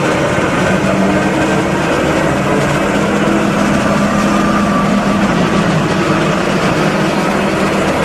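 New Holland CR8.80 combine harvester's engine running steadily as the machine drives along a road past the camera.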